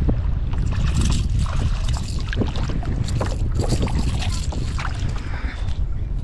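Wind rumbling on the microphone of a kayak on the water, with water splashing and many small sharp knocks and clicks scattered throughout.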